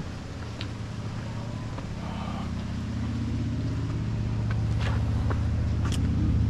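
A vehicle engine running with a low, steady hum that grows gradually louder as it comes closer, with a few scattered light clicks.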